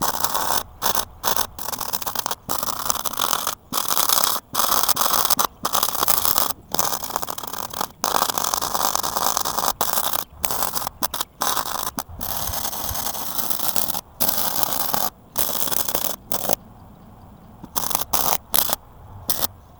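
Welding arc crackling and hissing in short runs that start and stop every second or so, as in stitch or tack welding of a steel base. It becomes quieter and patchier near the end.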